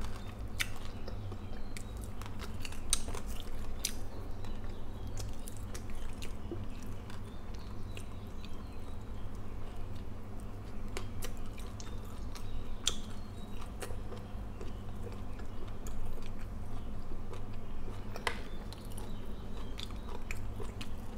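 Close-miked chewing of fried galunggong (round scad) fish and rice, mouth sounds with scattered sharp clicks throughout.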